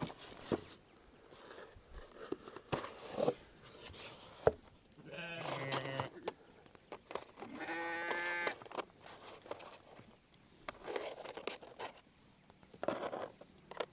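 Sheep bleating twice, two drawn-out calls about five and eight seconds in, with scattered light knocks and rustling between them.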